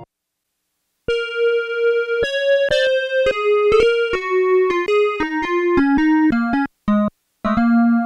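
Black Corporation ISE-NIN eight-voice analogue polysynth playing a preset, dry with no reverb or processing. About a second in, a quick melodic line of single notes starts and steps mostly downward in pitch, with a couple of short breaks near the end.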